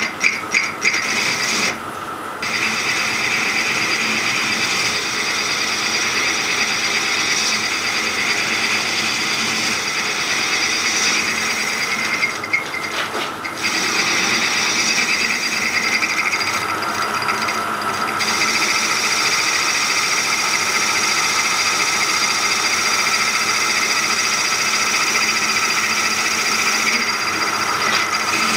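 Metal lathe running with a turning tool cutting a recess into the face of a model steam locomotive's driving wheel: a steady hiss of the cut with several high steady tones over it, easing briefly a few times.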